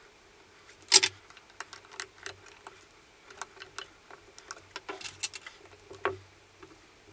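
Flush side cutters snipping excess component leads on a circuit board: a sharp snap about a second in, then a run of smaller clicks and taps as the board is handled in the helping-hands clips.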